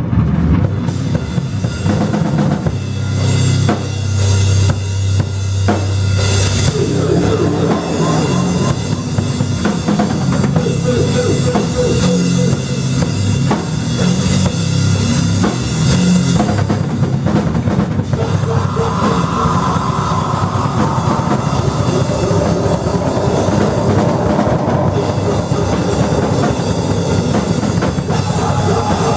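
A rock band playing loudly and without a break: a drum kit with bass drum and cymbals over a low bass line that moves from note to note. About two-thirds of the way through, a higher droning part comes in over it.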